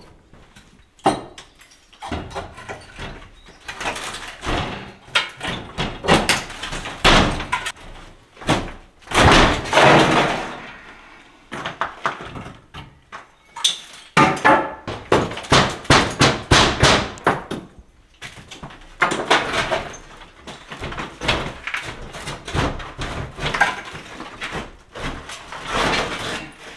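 Irregular knocks, thuds and scrapes of an old wooden window frame with glass panes being handled and knocked into a rough wall opening. There are denser runs of knocking near the middle.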